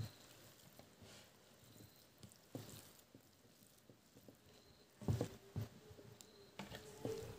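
Fingers mixing rice and pork innards by hand on a plate: soft squishes and scattered light clicks, with a few louder ones about five seconds in.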